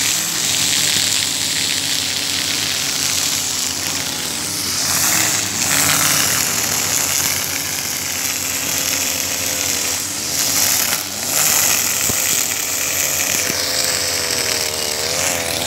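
Husqvarna 542RBS 42cc two-stroke backpack brush cutter running at cutting speed, its 2.4 mm square nylon line whipping through thick grass. The engine pitch keeps dipping and recovering as the line meets the dense growth, and rises near the end.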